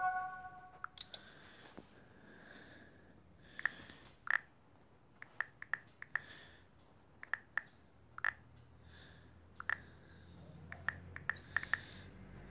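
Typing on a phone's touchscreen keyboard: scattered short, soft clicks at uneven spacing, one for each key tap.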